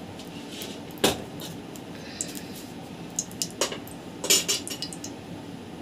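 A few sharp clinks and knocks of kitchen dishes and utensils: a loud one about a second in, then several more between about three and a half and four and a half seconds in.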